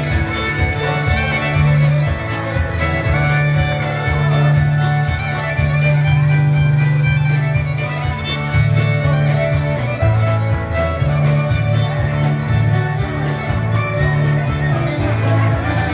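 Old-time fiddle dance tune with guitar backing and a steady beat.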